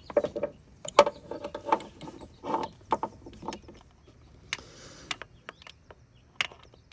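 Irregular metallic clicks and knocks of a 3/8-drive torque wrench and deep socket being worked onto water pump bolts, with a brief rattling scrape about halfway through.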